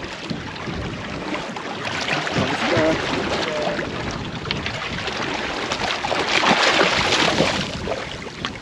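Wind buffeting the microphone over sea water around a small boat, swelling louder about six seconds in.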